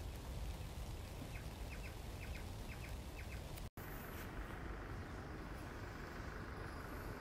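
Steady hiss of rain, with a run of faint, short high chirps for about two seconds in the first half. It cuts out for an instant, then the hiss carries on with a little more low rumble.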